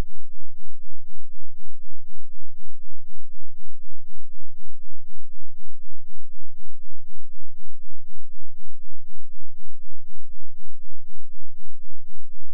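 2 Hz sine-wave subwoofer test tone: a steady, very deep pulsing whose loudness swells about four times a second.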